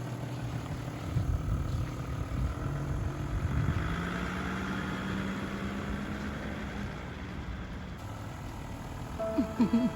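A car engine running steadily with a low rumble.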